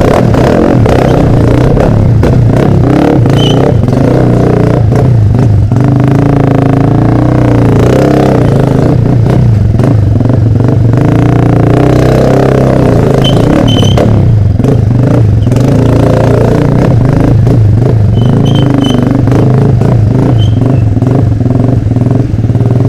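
Motorcycle with an open exhaust running loud, its engine note rising and falling as the throttle is opened and eased.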